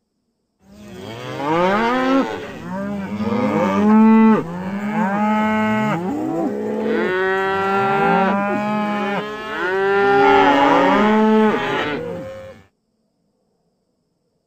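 Domestic cattle mooing: several long, overlapping moos, one after another, for about twelve seconds, then cutting off suddenly.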